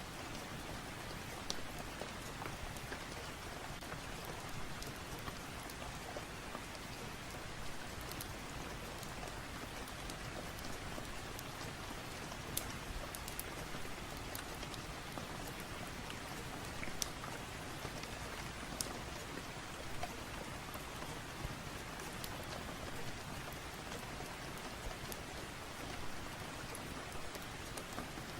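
Steady rain, with scattered small sharp crackles of a wood fire in a fireplace.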